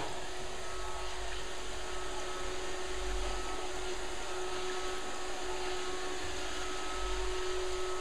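Roomba robot vacuum running: a steady whir with a constant hum and a fainter, higher whine that comes and goes.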